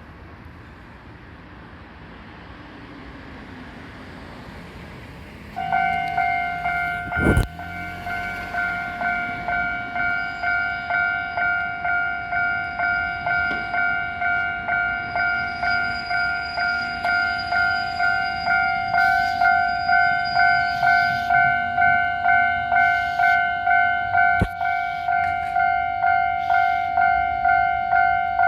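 Japanese railway level-crossing warning bell starting about five seconds in and ringing on steadily, a repeated electronic clang at about three strokes every two seconds. A single sharp knock comes shortly after the bell starts.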